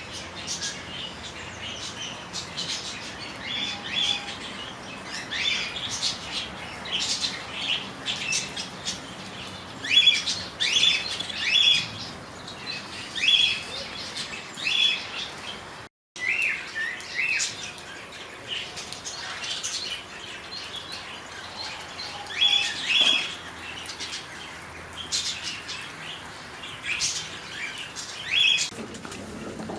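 Many short, high-pitched chirps and squeaks, repeated throughout over a faint background. The sound cuts out completely for a moment about halfway through.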